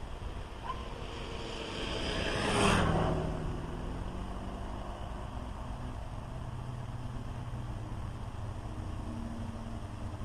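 A car passing by: it swells to its loudest about two and a half seconds in, then fades with a falling pitch. A low steady hum carries on after it.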